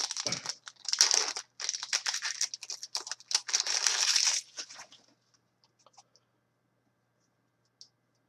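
The foil wrapper of a trading-card pack being torn open and crinkled by hand, stopping about five seconds in; a few faint clicks of cards being handled follow.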